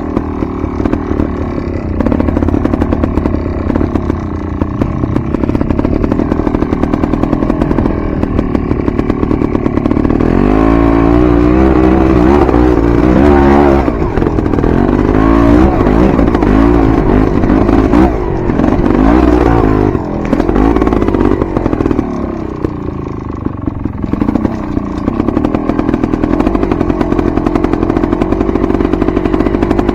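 Enduro dirt bike engine being ridden off-road, holding a steady note at first, then revving up and down repeatedly through the middle before settling again.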